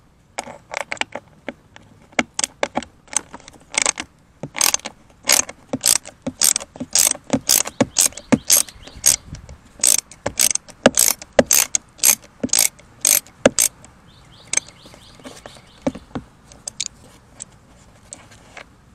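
Small hand ratchet clicking as it backs out a screw: a sharp click on each back-swing of the handle, about two a second, thinning out over the last few seconds.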